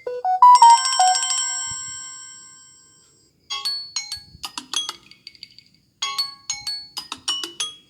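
Samsung Galaxy A20s phone ringtone playing. A short rising run of bell-like notes rings out and fades over about two seconds, then after a brief gap come two quick runs of short notes.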